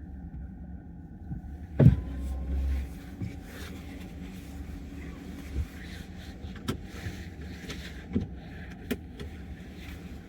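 Steady low rumble with scattered light clicks and one heavier thump about two seconds in.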